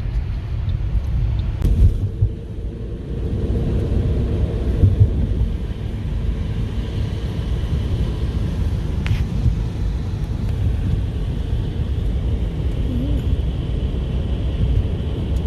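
Steady low rumble of a car's engine and tyres, heard inside the cabin while driving, with a couple of faint clicks.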